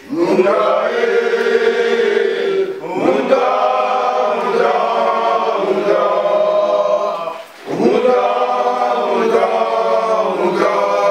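A group of men chanting together in unison, holding long sung notes in phrases a few seconds long, with two short breaks for breath.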